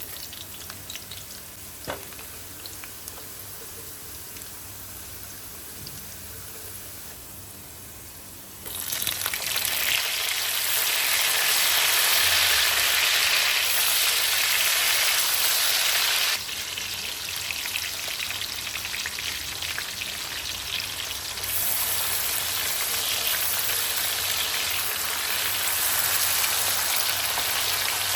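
Food frying in hot oil in a pan: a steady sizzling hiss that jumps sharply louder about a third of the way in, drops back a little past halfway and rises again later. A single light knock comes near the start.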